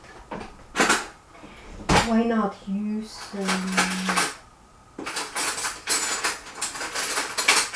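Kitchenware being handled: a few separate clinks, then a quick run of clattering and clinking, like a spoon and dishes knocking together, in the last few seconds.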